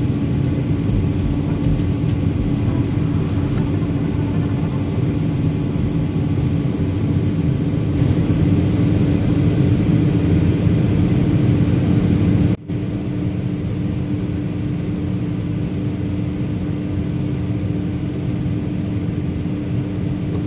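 SANY SY215C excavator's diesel engine running at high speed, about 2,100 to 2,200 rpm, during an engine calibration, with a steady hum over the engine note. The engine speed creeps up slowly as the throttle step goes from 10 to 11. The sound cuts out for a split second about twelve seconds in.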